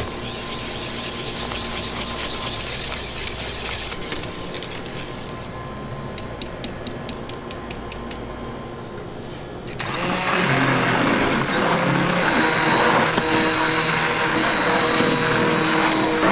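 A wire whisk working custard cream in a steel pot, then about ten quick taps of the whisk against the pot's rim. About ten seconds in, an immersion blender starts and runs steadily in the thick cream, the loudest sound.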